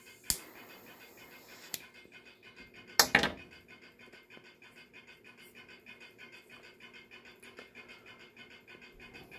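A lighter being worked to light a cigar: a sharp click with a faint hiss after it, another click, then a louder short rasping burst about three seconds in. Only faint low sounds follow.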